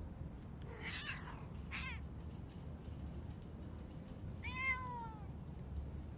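Cat meowing: two short, rough calls about a second in, then a louder, longer meow that falls in pitch.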